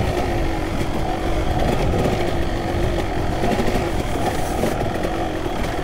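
Kawasaki KX250 dirt bike engine idling steadily while the bike stands still.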